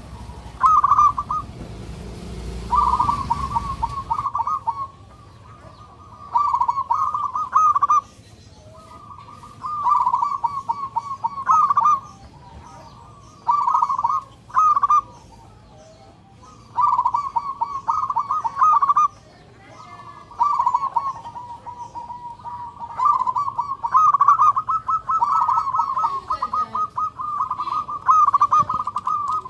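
Zebra dove (perkutut) cooing: bursts of rapid, rolling notes, a phrase every couple of seconds, running into a longer unbroken stretch near the end.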